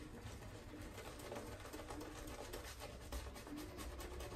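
Shaving brush working lather over a bearded face: faint, quick, irregular brushing strokes.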